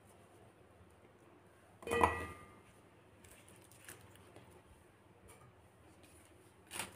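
One metallic clink with a short ring from a stainless steel mixer-grinder jar about two seconds in, amid faint handling and a few light ticks.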